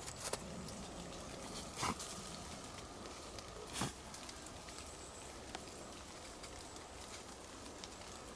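Quiet snowy woodland ambience with a few scattered soft taps, the clearest about two and four seconds in.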